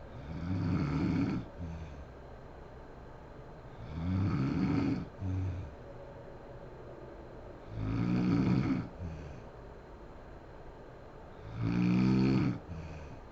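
A woman snoring in her sleep: four loud snores about four seconds apart, each lasting about a second, two of them followed by a brief shorter sound.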